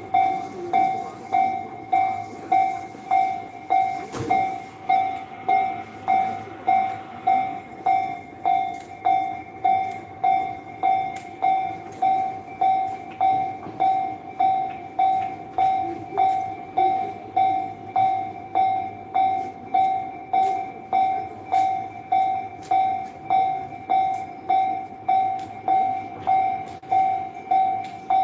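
Japanese railroad crossing warning bell ringing without a break, a single clanging tone repeated about three times every two seconds.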